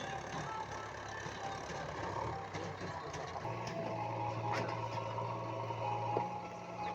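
Diesel engine of heavy machinery running steadily, its low hum growing stronger about halfway through.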